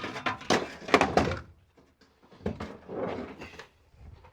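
Hand tools clattering and knocking in a tool box as it is rummaged through for a socket: a quick run of clicks and knocks, then a second bout about two and a half seconds in.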